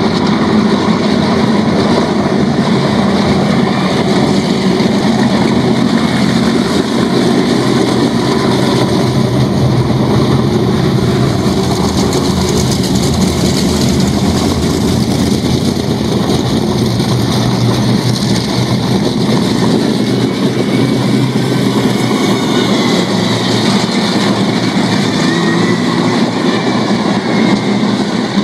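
Several Super Rod speedway cars' engines running together as the pack rolls around the dirt track, a loud, steady engine sound, with engines rising in pitch in the later part.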